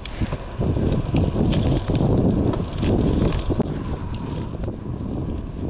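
Wind buffeting a chest-mounted GoPro's microphone as a road bike rolls along asphalt, with tyre noise under it. The rumble is gusty and settles a little near the end.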